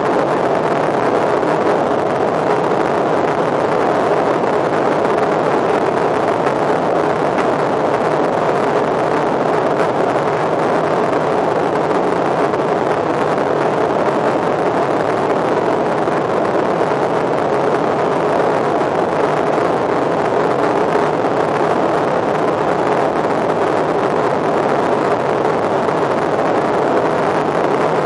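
Airbus A330 cabin noise in cruise flight: the steady rushing of engines and airflow heard inside the passenger cabin, with a faint even hum underneath and no change throughout.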